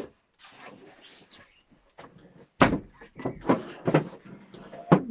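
Rustling and handling of a thick, newly unboxed winter jacket being unfolded and turned over, in several short bursts, the loudest a little past halfway and near the end.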